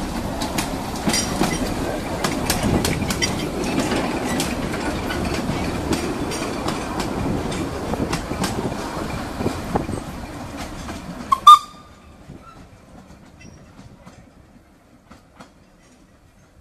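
Narrow-gauge steam train, the 1917 Kerr Stuart locomotive Stanhope and its coaches, running past close by: a steady rumble with clicks of wheels over rail joints. About eleven and a half seconds in there is one loud, brief sharp sound, after which the train sound drops away suddenly to faint.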